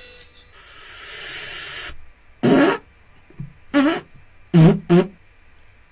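A short whoosh of noise that builds for about a second and a half. It is followed by three brief wordless vocal cries from a person, each bending in pitch.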